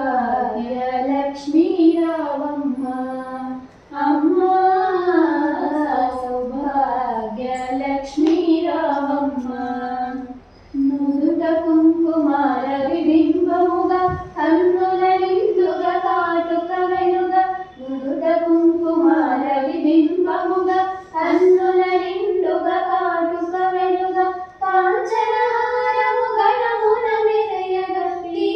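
A girl singing a devotional song solo and unaccompanied, in long held, gliding phrases with short breaks for breath between them.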